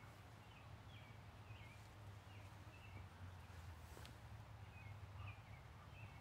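Faint bird chirps in the woods: a string of short, wavering high notes, about one every half second, over a steady low rumble, with a single sharp click about four seconds in.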